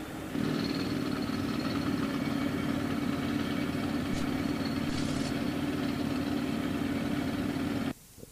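A motor vehicle's engine running steadily close by, a low even hum with a faint high whine over it, cut off abruptly near the end.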